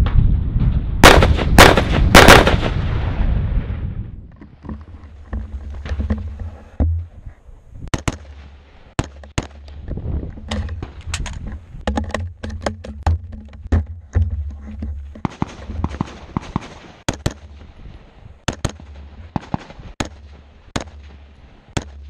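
AR-15 rifle shots fired in a long string at an irregular pace, often in quick pairs. The first three shots, in the opening seconds, are the loudest. A low steady rumble runs under the shots.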